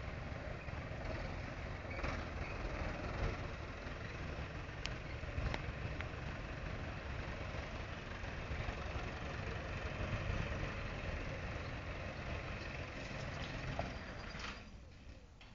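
Nuffield 460 tractor engine idling steadily; the sound falls away about a second before the end.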